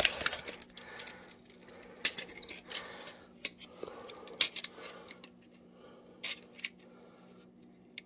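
Scattered clicks, taps and rustling from handling a steel tape measure against a metal plate, busiest in the first half and thinning out near the end, over a faint steady hum.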